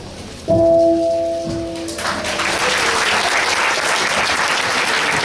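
A single ringing metallic strike with a few steady tones that fade out after about a second and a half, followed by audience applause that continues almost to the end.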